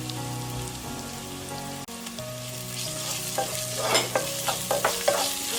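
Onions and ginger-garlic paste sizzling as they fry in oil in a pan, over a low steady hum. From about three seconds in, a spatula scrapes and knocks against the pan in quick strokes as the mixture is stirred.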